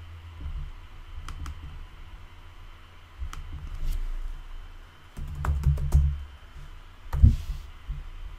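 Typing on a computer keyboard and mouse clicks: scattered clicks early on, then a short flurry of keystrokes a little past halfway and one harder key hit near the end.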